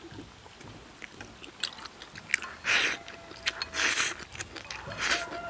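Close-up mouth sounds of a person eating braised pork trotter with rice: chewing and biting with small wet clicks and smacks, and three louder slurps about a second apart in the second half.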